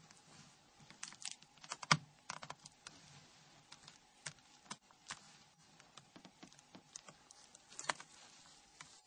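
Faint, irregular small clicks and taps of tweezers and small plastic parts as a Nokia N93's sub-display is fitted into its flip assembly. The sharpest clicks come about two seconds in and near the end.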